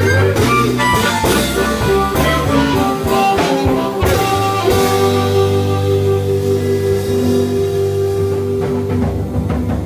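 A band playing the blues, guitar and drum kit, with no singing. After a busy run of notes and drum hits it settles about four seconds in onto one long held chord, and fresh hits come near the end.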